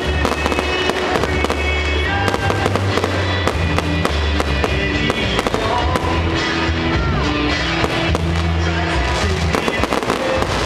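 Fireworks exploding in quick succession, many sharp bangs and crackles, over loud music with a steady bass and held notes.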